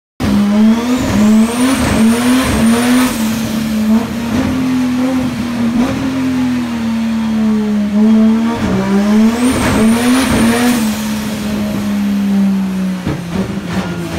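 Toyota 2JZ-GTE turbocharged straight-six with a BorgWarner EFR8374 turbo, running loud under load on a rolling-road dyno, its revs rising and dipping. A thin high whistle rises and falls twice above the engine note.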